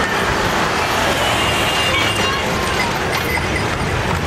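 Two-car tram passing close by, a steady rumble of its wheels and running gear on the rails, mixed with street traffic noise.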